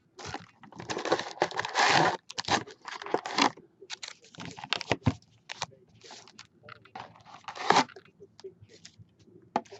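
Wrapping on 2016 Topps Gypsy Queen baseball card packs being torn open and crinkled, in a string of irregular rips and crackles.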